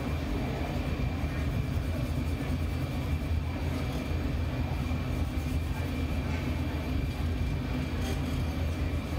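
Steady low roar of a glassblowing studio's gas-fired reheating furnace and its ventilation, with a faint steady high whine.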